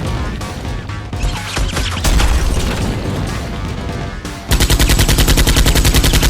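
Gunfire over action music, then about four and a half seconds in a rapid burst of automatic fire, about ten shots a second.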